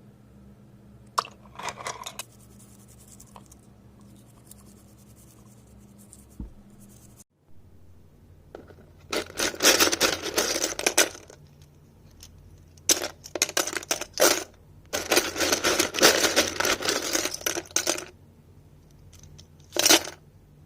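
Hard plastic parts of a mechanical keyboard clicking, clattering and scraping in several bursts of rapid clicks, with a quieter stretch between them.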